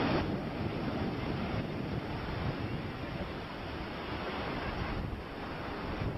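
Ocean surf washing and breaking, with wind buffeting the microphone.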